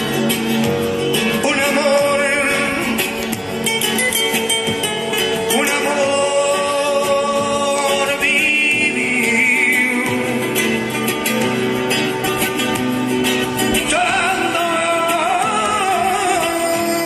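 Flamenco-style music: a singer holding long notes with vibrato over guitar.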